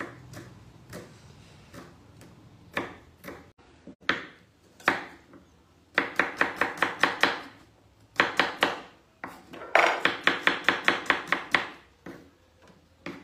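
Kitchen knife chopping a red onion on a chopping board. There are a few scattered single cuts at first, then, from about six seconds in, three quick runs of about six or seven knocks a second.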